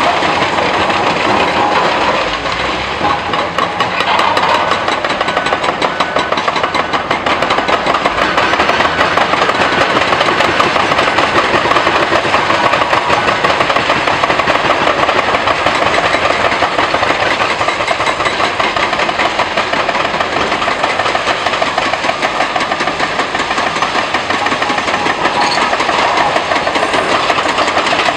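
Heavy excavators demolishing a concrete bridge: diesel engines running under load with a dense, rapid clatter of concrete and steel being crushed and broken by their hydraulic attachments.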